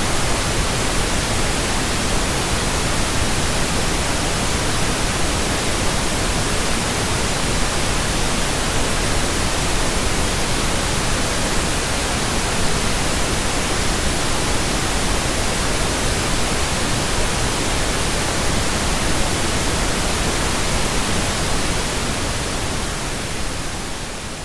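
Steady pink noise: an even, continuous hiss with no tones or rhythm, beginning to fade out near the end.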